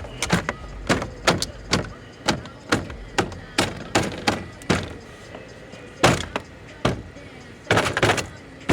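Repeated sharp knocks on the car door, about two or three a second, then a few more spaced out near the end.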